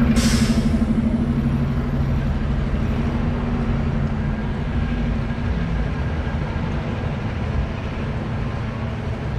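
City street traffic: a large vehicle's engine running with a low steady hum that fades away after about three or four seconds, over a constant traffic haze. A short burst of hiss comes right at the start.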